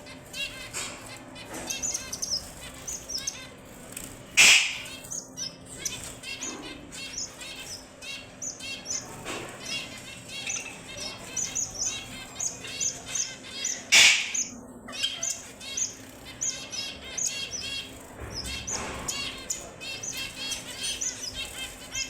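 Red avadavats (strawberry finches) chirping and twittering in quick series of short, high-pitched notes. Two loud sudden noises break in, one about four seconds in and one about halfway through.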